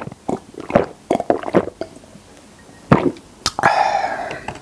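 Close-miked gulps of a drink swallowed from a glass mug: several quick swallows in the first couple of seconds and another about three seconds in. After the last swallow comes a sharp click, then a drawn-out breath out with the voice in it.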